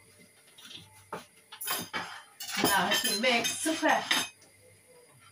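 Metal spoon clattering and clinking against a ceramic plate as dishes are handled, a few separate clicks first and then a dense run of clatter in the middle.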